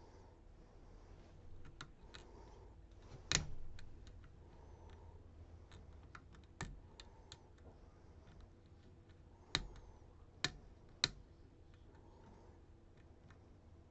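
Lock-picking clicks: a homemade pick working the pins inside a Ruko DP2 slider lock. Scattered sharp, light metallic clicks and taps come at uneven intervals, the loudest about three seconds in and three close together around ten seconds in.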